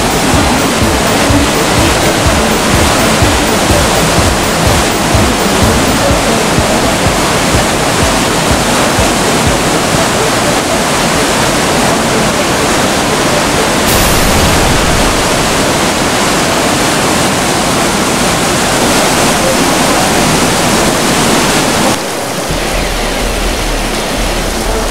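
Loud, steady rush of a muddy floodwater torrent surging through the streets.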